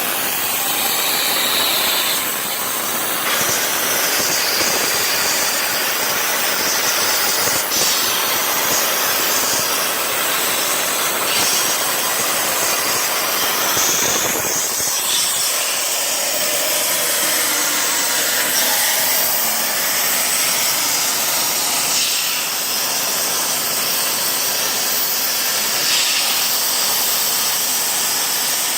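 CNC plasma torch cutting quarter-inch aluminum plate: a steady, loud, high-pitched hiss of the arc and its air jet, with a few faint ticks.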